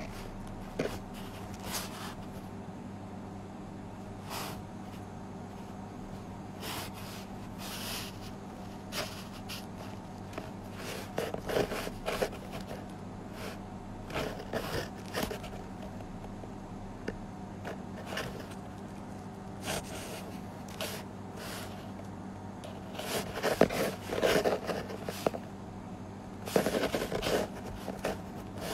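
Steady low electrical hum of a small room, with scattered soft clicks, taps and rustles from handling close to the microphone. The rustles come in short clusters a little under halfway in and again near the end.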